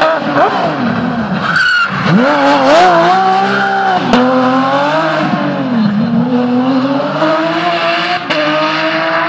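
Rally car engine revving hard as the car passes close, its pitch climbing and dropping again and again as it shifts through the gears. There is a sharp crack about four seconds in.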